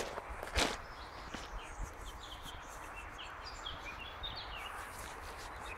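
Small birds chirping in short high notes over a steady rush of flowing stream water. One crunching step on gravel about half a second in.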